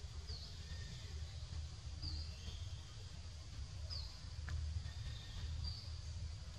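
A bird calling: short, high, downward-sliding notes repeated about every two seconds, over a steady low rumble.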